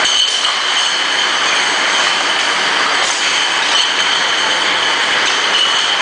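Glass bottle washing line running: a steady, loud mechanical din from the machine and its conveyor, with a constant high-pitched squeal over it.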